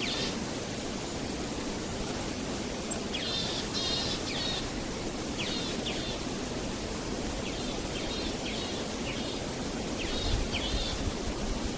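Steady outdoor hiss with short, high, falling bird chirps in small clusters of two or three, recurring every second or two.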